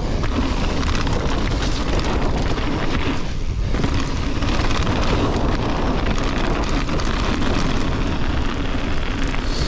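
Mountain bike rolling fast down a loose gravel track: wind rushing over the microphone, with tyres crunching over stones and the bike rattling. The noise is steady and loud, easing for a moment a little over three seconds in.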